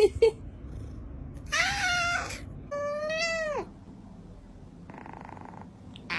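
A cat meowing twice: two drawn-out meows of about a second each, the second sliding down in pitch at its end. A couple of brief knocks come at the very start.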